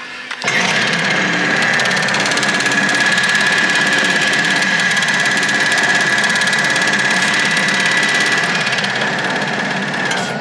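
Steady engine drone with a thin high whine over it, starting abruptly about half a second in.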